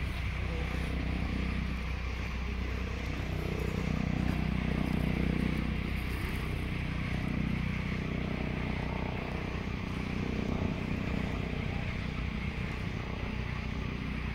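Steady low rumble that swells a little a few seconds in.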